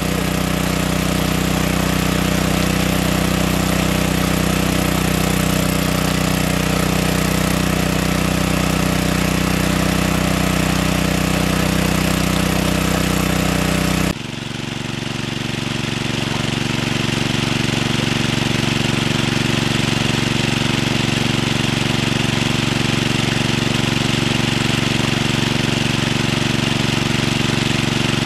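Small petrol-engine water pump running steadily, with water gushing from its outlet pipe. The sound changes abruptly about halfway through, then runs on steadily.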